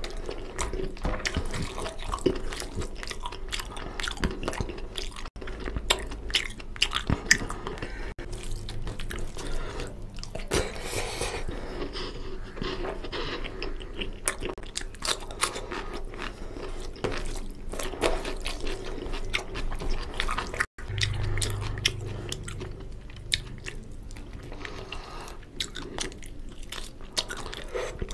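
Close-miked chewing and biting of oily mutton leg-piece curry and rice eaten by hand, a steady run of small wet mouth clicks and smacks.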